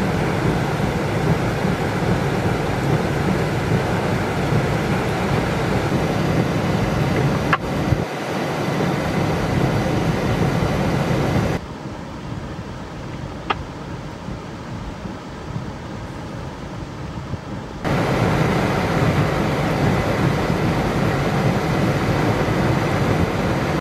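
Torrential rain pouring on flooded streets, mixed with traffic driving through the floodwater: a steady hiss and rumble. It drops quieter and duller for about six seconds in the middle, then returns at full level.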